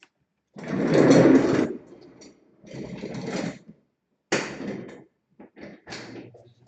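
Tools or parts being slid and scraped across a workbench: three scraping noises about a second long each, the first the loudest, then a few short knocks and rubs.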